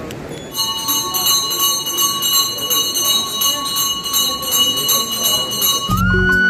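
A temple bell rung again and again, two or three strokes a second, its ringing tones carrying on between strokes. Shortly before the end the ringing cuts off and background music with a flute comes in.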